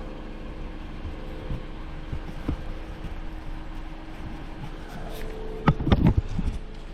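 Handling noises from fitting a scooter's headlight module and plugging in its wiring connector: a few light knocks, then a burst of louder clicks and rattles about six seconds in, over a steady low hum.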